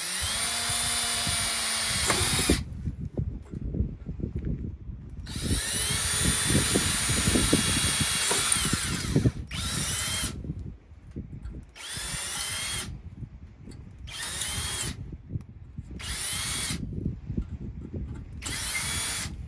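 Cordless drill boring into a concrete step in repeated bursts: the motor whine spins up and winds down each time, and the bit grinds in the concrete. Two longer runs are followed by several short trigger pulls. Rough low rumble, likely wind on the microphone, carries on between the bursts.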